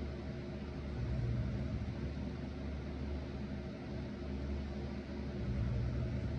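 A person snoring, two low snores about four seconds apart, one about a second in and one near the end, over the steady whir of an electric fan.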